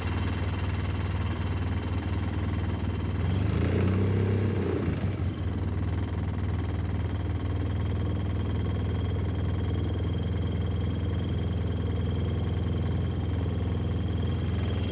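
An engine running steadily with a low, even hum, swelling briefly about four seconds in.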